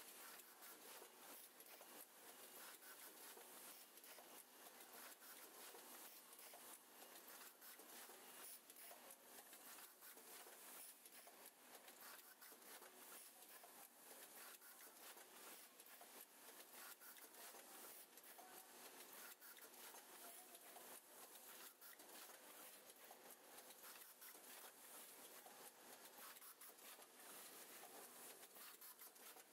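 Automatic relay assembly machine running: a faint, dense, continuous clicking and rattling from its moving parts.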